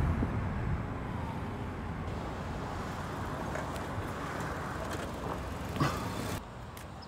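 Steady car road and engine noise heard at the window of a moving car. A short knock comes near the end, and then the noise drops away abruptly.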